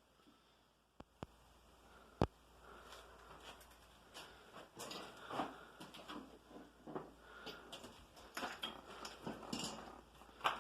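A sharp click about two seconds in, then irregular scraping and rustling with light knocks and clicks: hand work on an old furnace as it is taken apart.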